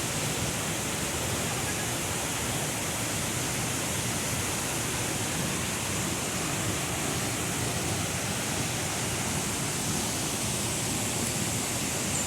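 Waterfall's water crashing down, a steady, even rush of noise.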